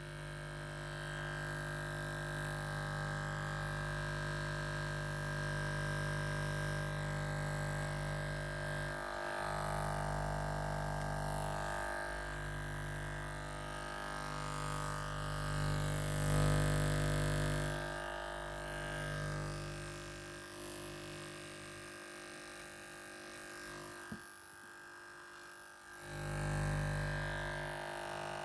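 Electric shaver running with a steady, buzzing hum whose loudness and tone swell and dip. It goes quieter and thinner for a few seconds near the end, then comes back up.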